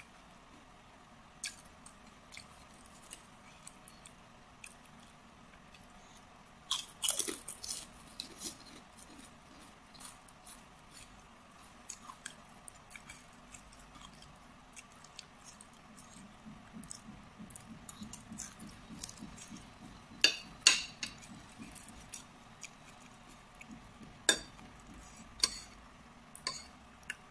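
Mukbang eating: a metal spoon scraping and clinking on a ceramic plate in sharp clicks, loudest several seconds in and again near the end, with close chewing between.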